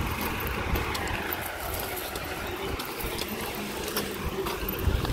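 Roadside outdoor noise: a vehicle passing, with a faint falling pitch in the first couple of seconds, over an uneven low rumble of wind on the microphone.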